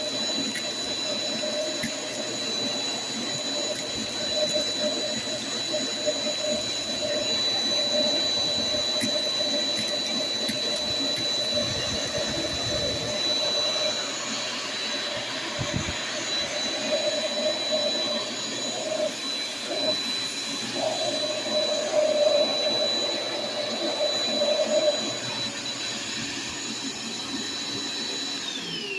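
Shop vac running through a crevice tool with a steady high whine, as aluminum soda can tabs and beads rattle and click up the hose. Right at the end the motor is switched off and its whine falls away as it winds down.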